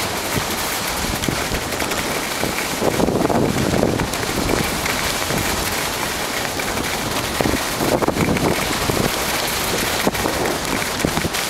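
Skis hissing and scraping over packed, tracked snow on a downhill run, with wind rushing over the microphone; the scrape swells and fades in places.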